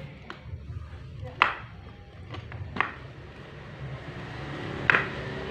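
About five sharp clicks and knocks of hard metal and wooden parts being handled on a homemade bocap air rifle as its barrel and air-tube assembly is taken hold of and worked out of the wooden stock. The loudest knocks come about a second and a half in and near the end.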